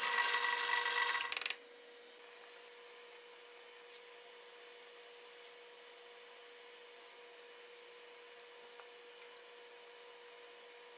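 A drill press boring into a wooden knife-handle block, with a steady whine and cutting noise, stops abruptly about a second and a half in. After that there is only a faint steady hum and a few soft ticks and taps.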